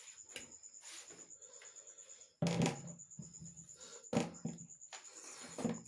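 Close-up eating sounds of a person slurping and chewing Maggi noodles: three loud bursts, about two and a half seconds in, just after four seconds and near the end. Under them runs a steady, fast-pulsing high trill.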